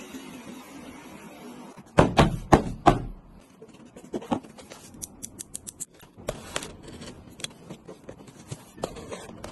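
Small metal fishing-reel parts being handled: four loud knocks about two seconds in, then a quick run of light clicks and scattered ticks.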